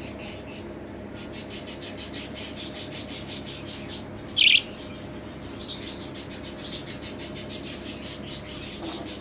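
Young budgerigars chirping in a fast, steady run of short high notes, many a second, with one louder single call about four and a half seconds in.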